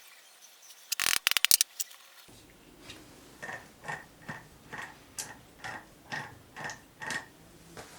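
A small screw and washer clicking into place on the mini mill's gearbox, then short metallic clicks about twice a second, about eight in all, as the screw is turned in.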